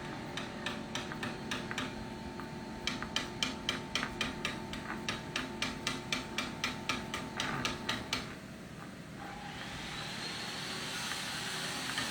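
A spoon clinking against the inside of a cup while stirring, about four light clinks a second, pausing briefly and stopping about two-thirds of the way through, over a steady room hum.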